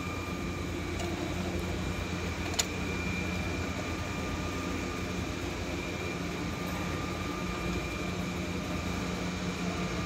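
Steady mechanical background hum with a thin high whine over it, and one sharp click about two and a half seconds in.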